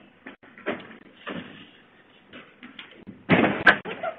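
A house side door being opened: a few soft knocks and scuffs, then a louder rattling bang with a sharp click about three and a half seconds in. Picked up by a security camera's microphone, so it sounds thin.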